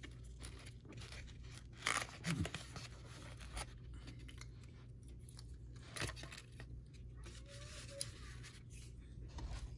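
Plastic knife scraping a spread across slices of bread, in short scrapes and clicks, the strongest about two seconds in and again about six seconds in. A low steady hum runs underneath.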